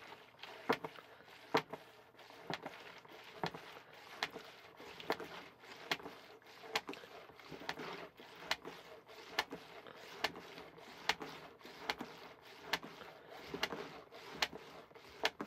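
Plastic plunger of a Hershey's chocolate milk mixer pitcher pumped by hand: a sharp click about once a second with fainter clicks between strokes, over the slosh of milk being churned. The milk is being whipped into foam.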